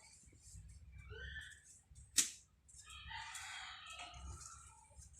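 Harsh bird calls: a short call about a second in, then a longer, raspy call about three seconds in. A sharp click sounds between them, the loudest thing in the stretch.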